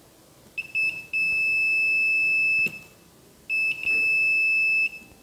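Multimeter continuity buzzer beeping twice, a steady high-pitched tone about two seconds long and then about a second and a half long, each starting with a brief stutter as the test probes make and break contact on the MOSFET's pins. The beep signals that the meter sees a conducting path between the probes.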